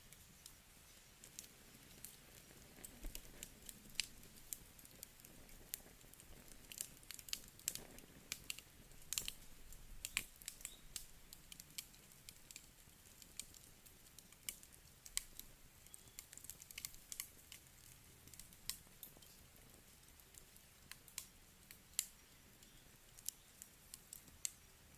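Wood fire crackling, with irregular sharp pops and snaps over a soft hiss. The pops come thickest a few seconds in.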